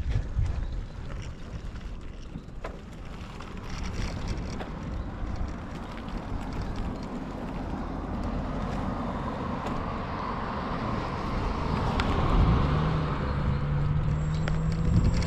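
Road traffic on a bypass, with wind on the microphone. The noise swells from about halfway through as a vehicle draws near, and a steady low engine hum joins near the end.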